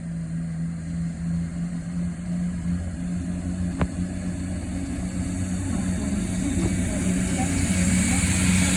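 Chiltern Railways Class 168 Clubman diesel multiple unit departing, its diesel engines running steadily under power and growing louder toward the end. A single sharp click comes about four seconds in.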